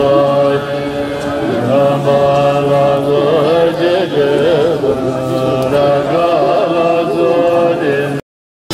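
Mantra chanting: a steady low drone under a wavering, ornamented vocal line. It breaks off abruptly into silence near the end.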